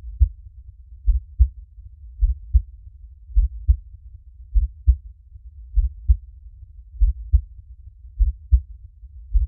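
Heartbeat playing as a slow, steady lub-dub: pairs of deep thumps about once every 1.2 seconds, roughly 50 beats a minute, over a low rumble.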